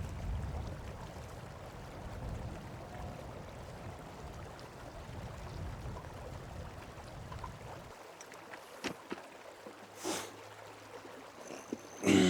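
River water running steadily under a low rumble. After about eight seconds it drops abruptly to a much quieter background, with a few sharp clicks and a brief louder pitched sound at the very end.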